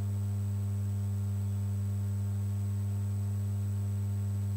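Steady low electrical hum in the recording, one unchanging low drone with a weaker overtone above it.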